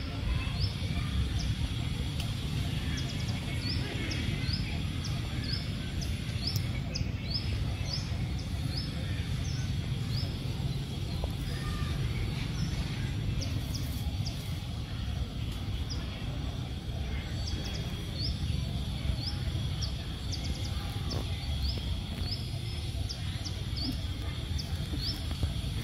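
Outdoor ambience: a small bird chirping over and over, short rising high chirps one or two a second, over a steady low rumble and a thin steady high tone.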